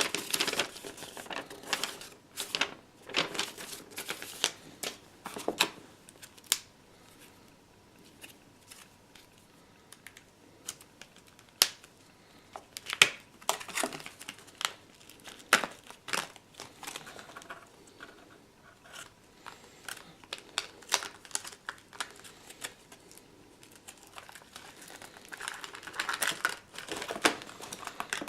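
Packaging being handled: plastic wrapping crinkling and rustling, with scattered sharp clicks and light knocks. The crinkling is busiest at the start and again near the end, with a quieter stretch of occasional clicks in between.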